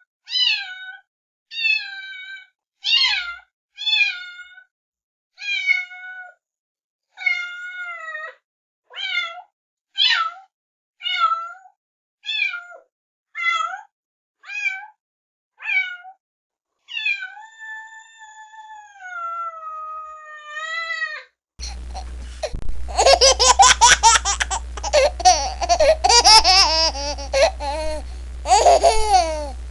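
A domestic cat meowing over and over, more than a dozen short falling meows about one a second, then two long drawn-out meows. About 21 seconds in it cuts abruptly to loud laughter over a low hum.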